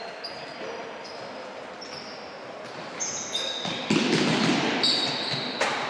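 Sneaker soles squeaking in short high chirps on the sports hall floor as players run and cut, echoing in the large hall. The noise gets louder about four seconds in.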